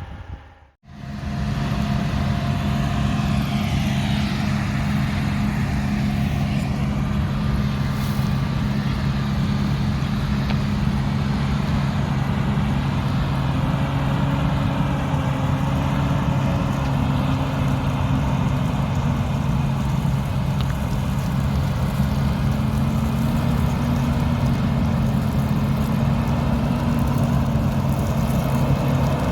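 Combine harvester running steadily with a loud, even engine drone. It cuts in abruptly after a moment of silence about a second in.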